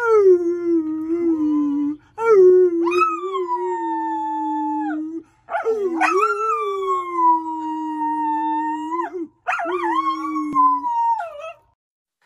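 A man and his dog howling together: four long howls in a row, each sliding down in pitch at the start and then held steady.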